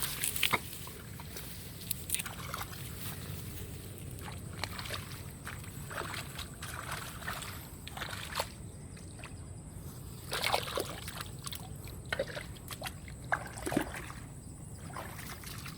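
Shallow stream water sloshing and splashing in irregular bursts as someone wades and works in it, over a steady low rush of the flowing stream.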